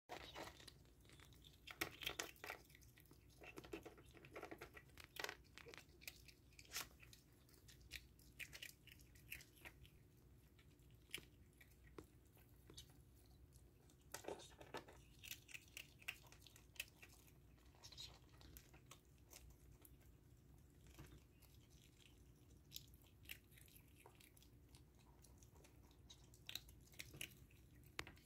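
A ferret crunching dry kibble pellets: a long run of irregular, sharp crunches, thickest in the first few seconds.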